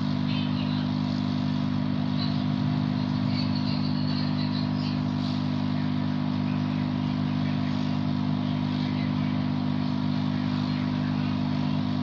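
Handheld hot air rework gun's fan running with a steady hum, blowing hot air onto a phone's charging port to melt the solder and free the broken jack.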